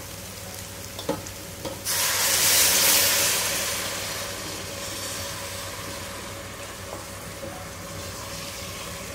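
Hot water poured into a pot of hot roasted vegetables and masala: a steel spoon clinks against the pot, then a sudden loud sizzling hiss sets in just before two seconds and slowly dies down to a lower sizzle as the dish is stirred.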